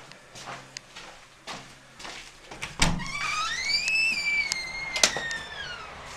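A door being opened: clicks of the handle and latch, a thud about three seconds in, then a long hinge squeak that rises in pitch and slides back down as the door swings open.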